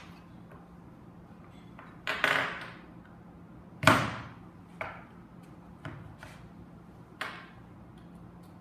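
Metal cork borers knocking and clinking: a handful of short, sharp, slightly ringing strikes as the borers are pressed through a potato onto the cutting tile and handled. The loudest knock comes about four seconds in.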